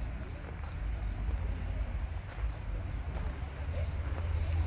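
Footsteps crunching on gravel, a few soft irregular steps, over a low steady rumble.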